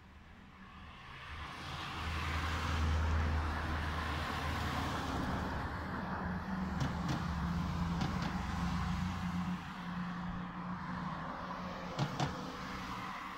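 Street traffic: a car approaching and passing with a low engine rumble that builds from about a second in, then steady traffic noise that eases off near the end. Two sharp clicks come near the end.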